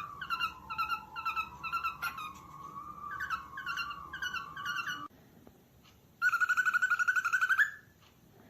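Cockatiels calling: short repeated chirps about twice a second over a long, wavering whistled note. After a brief pause comes a louder, rapid run of quick calls lasting about a second and a half.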